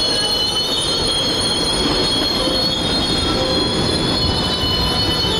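Amtrak passenger train's cars rolling slowly along the platform track, the steel wheels squealing in several high, steady, slightly wavering tones over a low rumble.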